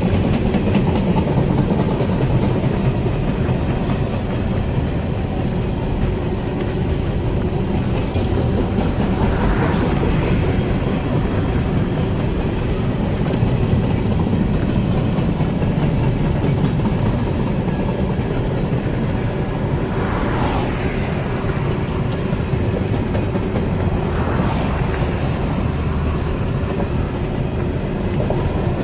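Train rolling past close by, a long steady rumble of cars going by, with three brief higher-pitched sounds along the way.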